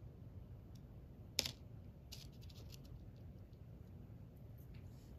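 A small 3D-printed plastic relay box model being set down on a tabletop: one sharp tap about a second and a half in, followed by a few faint clicks, over a low room hum.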